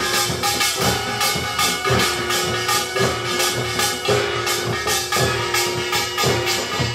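Samulnori ensemble playing: a taepyeongso (Korean double-reed shawm) holds a long, piercing melody over a steady, driving rhythm of drums and gongs.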